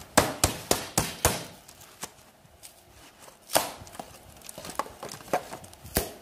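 Sharp cracks and taps as a scored pre-insulated foam duct panel is bent by hand and the foam splits along the cutter lines. A quick run of about five in the first second and a half, then single cracks a second or so apart.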